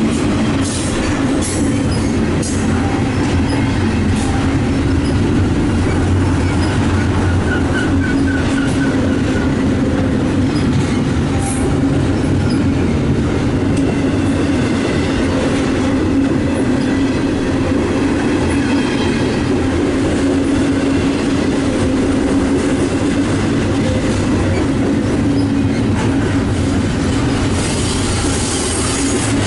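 Double-stack intermodal freight train's container well cars rolling past, the steady noise of steel wheels running on the rails.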